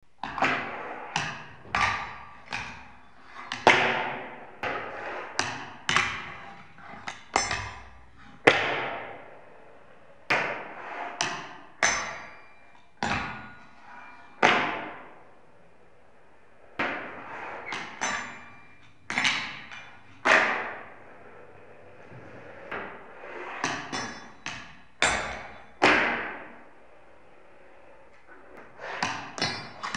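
A fingerboard popping and landing on a wooden tabletop and a small rail: many sharp clacks of the deck and trucks, each with a short ringing tail, coming in irregular runs with brief pauses.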